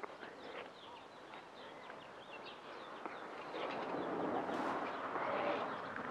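Small birds chirping repeatedly in quick, short calls, over a soft outdoor rustle that grows louder in the second half.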